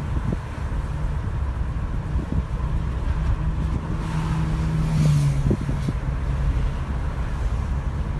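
Car driving slowly, heard from inside the cabin: a steady low rumble of engine and tyres with some wind on the microphone. A low engine hum comes up in the middle for a few seconds.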